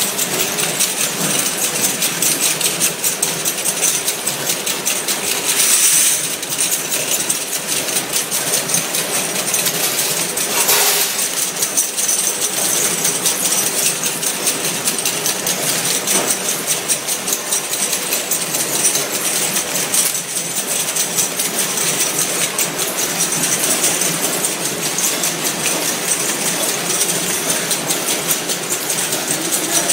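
Automatic cartoning machine for ampoule trays running: a continuous dense metallic clatter and fast ticking from its mechanism and conveyor, with a louder clack about eleven seconds in.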